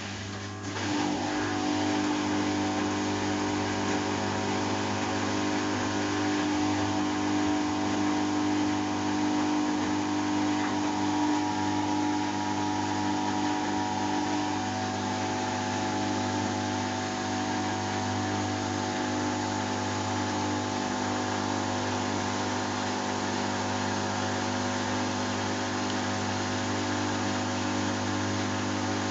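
Samsung WF70F5E0N4W washing machine starting up abruptly and then running steadily, a loud machine hum with several steady whining tones.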